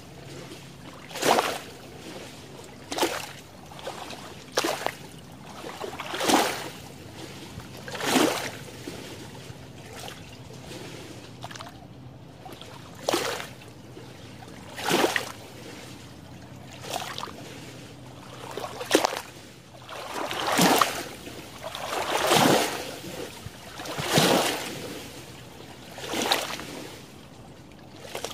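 Small waves lapping at a shallow lake shore among water plants: a splash about every two seconds, with a lull of a few seconds in the middle and longer, fuller washes near the end.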